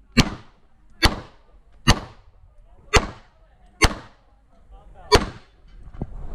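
Six handgun shots fired during an IPSC practical shooting stage, spaced roughly one second apart, each a sharp crack with a short ringing tail.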